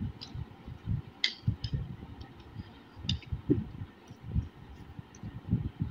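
Two people eating noodles fast from bowls: irregular soft low thumps with a few short sharp sounds, the clearest about a second in and again about three seconds in.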